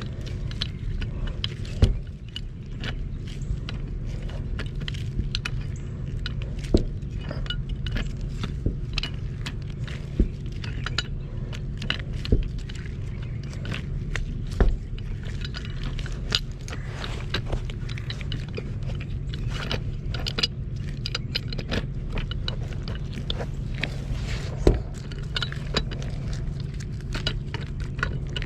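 Metal tools and galvanized pipe fittings clinking, tapping and scraping at irregular intervals over a steady low hum.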